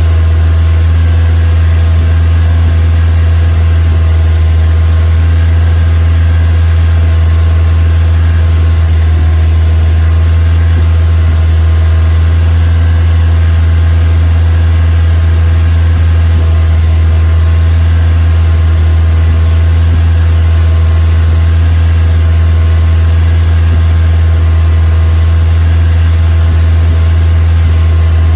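Westfield's Ford Zetec four-cylinder engine running steadily at a fast idle with a misfire.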